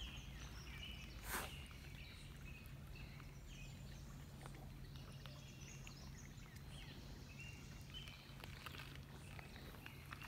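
Faint birdsong: short whistled chirps repeating on and off, over a low steady hum. One brief knock about a second and a half in.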